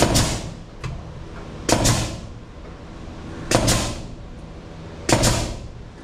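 Nail gun firing four times, a shot every second and a half to two seconds, each a sharp crack that trails off in a short hiss.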